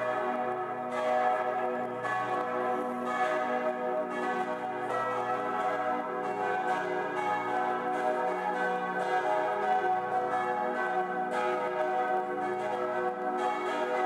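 Full peal of the Herz-Jesu church bells in Wustweiler: several church bells ringing together in a continuous, overlapping clangour. The peal is rung to mark the end of coal mining in the Saarland.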